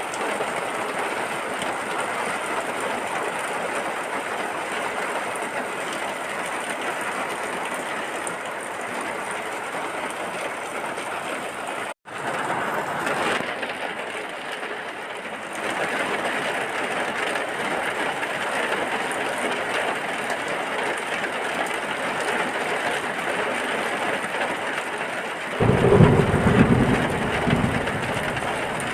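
Steady heavy rain. It drops out for an instant about twelve seconds in and comes straight back. Near the end a low rumble of thunder rolls in and is the loudest sound.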